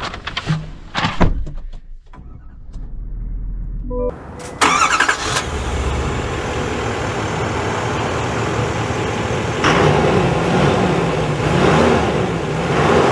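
Knocks and clicks as the driver gets into the cab, a short chime, then the 6.6-litre Duramax turbodiesel V8 of a 2024 GMC Sierra 3500 Denali dually cranks and starts about four and a half seconds in and settles into a steady idle. In the last few seconds the engine note rises and falls several times.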